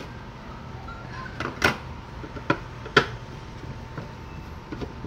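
Several sharp clicks and knocks of hands handling the opened plastic fan base and its wiring and tools, the loudest about a second and a half in.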